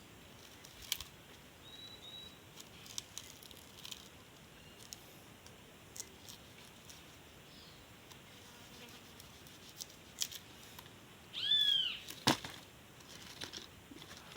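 Faint scattered clicks and small knocks. About three quarters of the way in there is one loud, high animal call that rises and falls in pitch, the loudest sound here.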